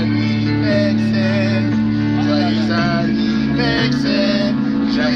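Background music with guitar over a steady bass line, with a singing voice over it.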